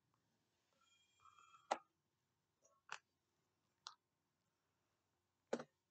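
Near silence broken by four sharp clicks or taps, spaced about a second apart.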